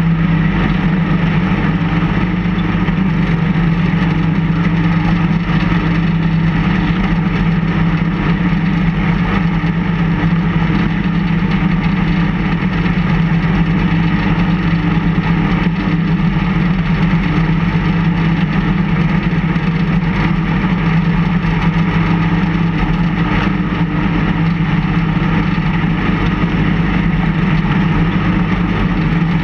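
Engine of a snowplow vehicle running steadily as it pushes snow with its front blade: an even, unchanging drone.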